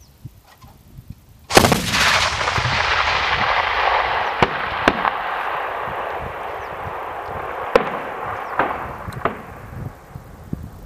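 ZU-23-2 twin 23 mm anti-aircraft autocannon firing a burst. The rapid gunfire starts suddenly about a second and a half in and fades slowly over several seconds, with a few sharper cracks on top.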